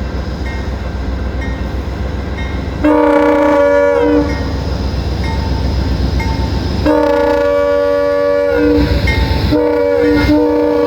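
Amtrak P42 locomotive's multi-note air horn sounding a short blast, a longer one, and a third that runs on, over the steady rumble of the diesel engine. The horn sounds awful, like a barge or boat, which the railfan puts down to the horn being frozen.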